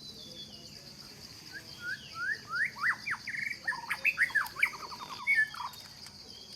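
A songbird singing a varied phrase of loud whistled notes that sweep up and down, with quick trills among them. It starts about a second and a half in and stops near the end, over a steady high insect drone.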